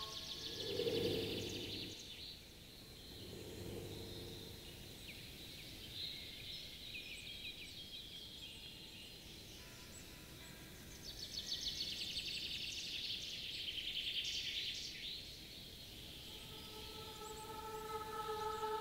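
Forest soundscape of high, rapidly pulsing chirring, typical of insects, that comes and goes in three spells, with two brief low calls in the first few seconds. A chord of steady held tones fades in near the end.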